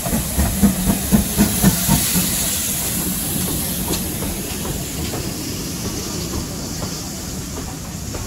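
Steam locomotive passing close by, its exhaust beating about four times a second for the first two seconds, with steam hiss. The coaches then roll past in a steady rumble that slowly fades.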